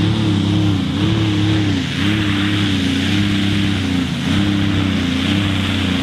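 Light modified pulling tractor's engine running hard at high revs under load, its pitch wavering up and down every second or so.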